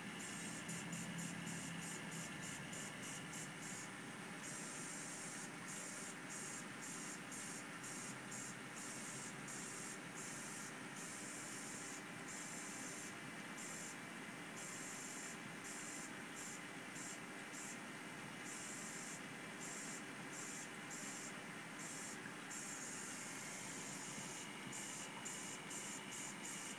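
Steady hiss of air bubbling up through a water-filled clear tube fed by an air hose.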